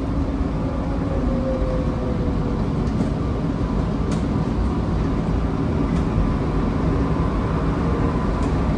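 PHX Sky Train, a rubber-tyred automated people mover, running along its guideway, heard from inside the car: a steady low rumble with a faint whine and a few light ticks.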